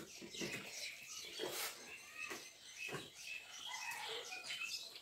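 People chewing and lip-smacking while eating rice and curry with their hands, with fingers squelching and mixing rice on steel plates: a string of short, irregular wet smacks and clicks with small squeaky notes.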